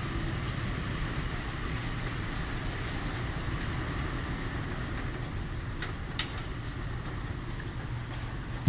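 Typhoon wind rushing steadily around a tall building, a constant low rumble with no rain, broken by two sharp clicks about six seconds in.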